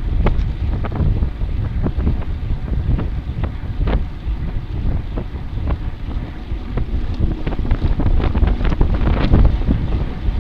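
Wind buffeting the microphone as a steady low rumble, with many short clicks and knocks scattered through it.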